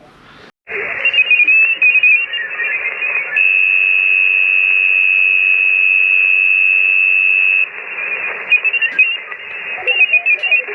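HF amateur radio receiver audio from the transceiver's speaker: band hiss with warbling, chirping signals, then one steady high whistle from a carrier held for about four seconds, then hiss again with scattered blips. These are the mystery signals heard when tuning across the HF bands.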